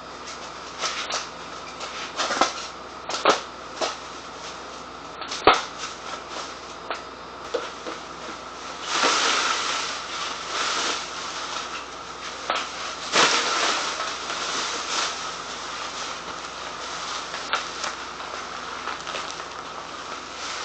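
Handling noises: scattered knocks and clicks with stretches of rustling, as the copper still and its packaging are moved and unwrapped.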